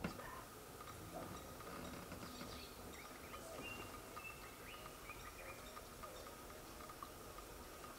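Faint bush ambience: a low steady background with a few short, distant bird chirps a couple of seconds in.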